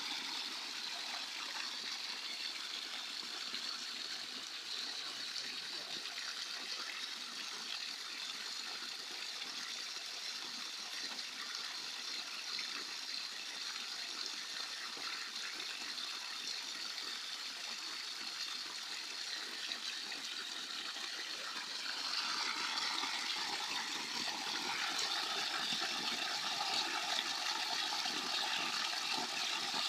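Spring water running and splashing down a small rocky channel, a steady rushing splash that grows louder about two-thirds of the way through.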